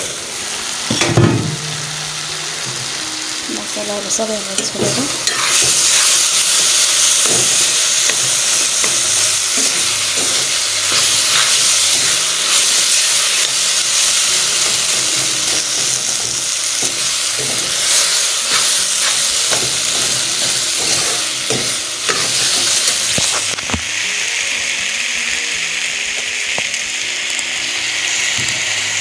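Food frying in a hot pan, sizzling steadily while a spoon stirs and scrapes with short knocks. The sizzle grows louder about five seconds in and eases a little near the end.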